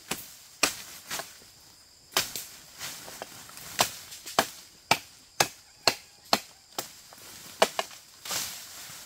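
Repeated chopping blows, sharp separate strikes, irregular at first and then a steady two or so a second for a few seconds.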